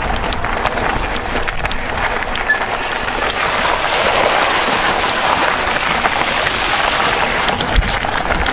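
Mountain bike tyres rolling over a gravel track: a steady crunching hiss of loose stones, with many small clicks and rattles.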